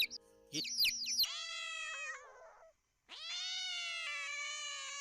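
Chicks cheeping in quick, downward-slurred peeps for about the first second, then two long drawn-out cries from a young mammal, the second lasting about two seconds.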